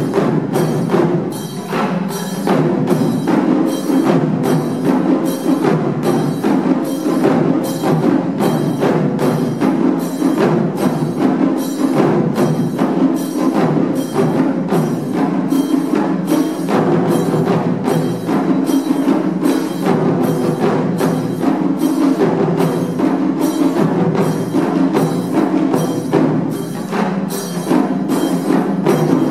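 Taiko drum ensemble playing: a row of barrel-shaped nagado-daiko struck with wooden bachi sticks in a steady, even rhythm.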